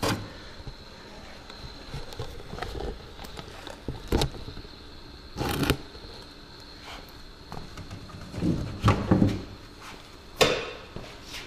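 Scattered knocks and clunks of parts and tools being handled on an electric-car battery pack, the sharpest one near the end, over a faint steady high whine.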